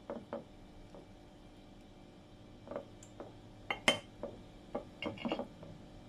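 Steel fork and knife clinking and tapping against a ceramic plate while a baked sweet potato is pried open. Two light taps at the start, then a string of sharper clinks, the loudest about four seconds in and a quick cluster near the end.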